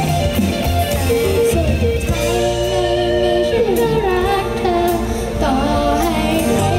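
Live pop band playing, with a woman singing a melody into a microphone over guitar, bass and drums. The singing voice comes to the front about two seconds in.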